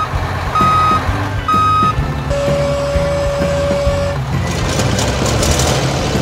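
Truck reversing alarm beeping twice, about a second apart, then a lower single tone held for about two seconds, over a steady low engine rumble.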